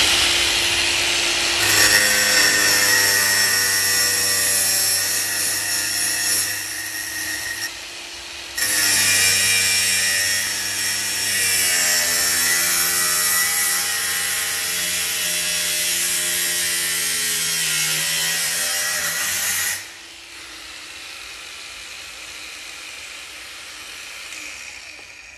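Cordless brushless angle grinder with a cutting disc slicing through 1 mm hollow steel tube: a loud, steady motor whine with a grinding edge, dipping in pitch as the disc bites, with a brief break about 8 seconds in. At about 20 seconds the disc comes off the metal and the grinder runs on more quietly, fading near the end.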